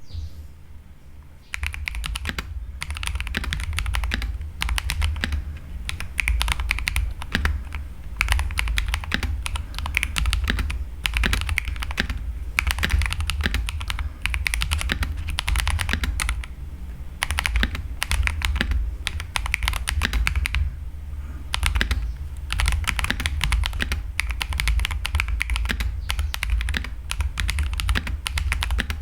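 Continuous fast typing on an Akko PC75B mechanical keyboard with stock CS Jelly Silver linear switches: a dense run of keystroke clacks, starting about a second and a half in, with a few brief pauses.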